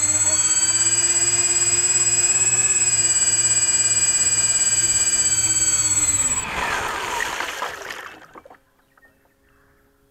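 Electric motor of an RC boat running steadily with a high whine, then throttled off about six seconds in, its pitch falling as it spins down to near silence within about two seconds.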